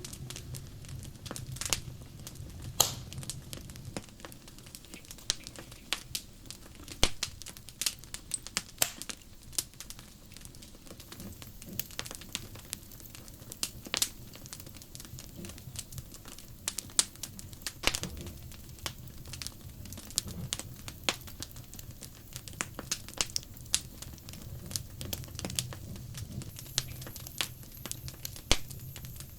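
Wood fire crackling: irregular sharp pops and snaps, some much louder than others, over a faint steady low hum.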